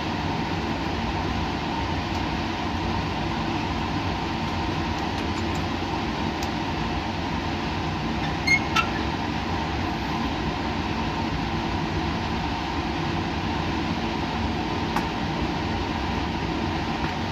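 Steady mechanical hum and air rush of laboratory machinery running, with a few constant tones in it. Two short clicks come about eight and a half seconds in.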